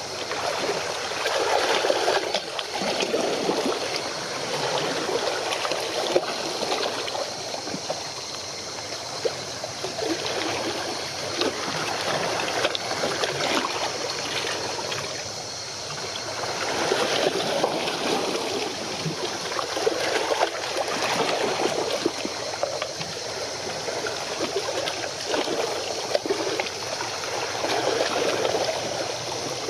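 Small waves lapping and splashing against the shore, a choppy water noise that swells and eases every few seconds, with a faint steady high tone behind it.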